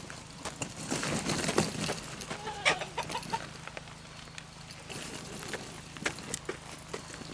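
Chickens clucking while hay is dumped and rustled, with a burst of rustling and knocks in the first half and sparser clicks after.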